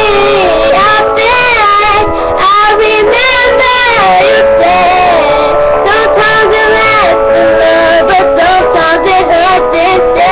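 A girl singing along to backing music, picked up by a laptop's built-in webcam microphone, which makes the recording sound poor.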